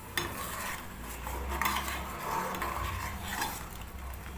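A spoon stirring in a small metal pot of tea, scraping and clinking against the sides, to melt the palm sugar candy just added. It begins with a sharp clink, and the scraping and clinks ease off near the end.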